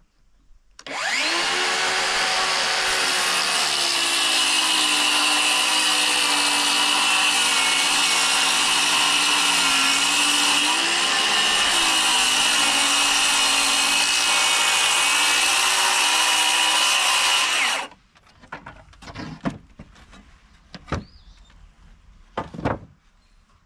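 Circular saw cutting through a plywood sheet: it starts about a second in, runs steadily for about 17 seconds with its pitch sagging a little partway through, and stops suddenly. A few knocks follow near the end as the saw is set down on the board.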